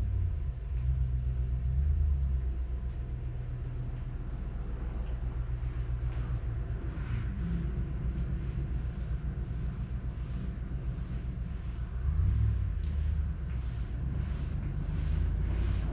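Kubota tractor's diesel engine running with a steady low rumble, getting louder for a moment about twelve seconds in and again near the end.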